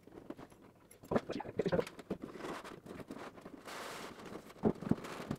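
A cardboard box being opened and handled: rustling, scraping and light knocks of cardboard and packaging, with a longer scraping hiss about three and a half seconds in and two sharper knocks near the end.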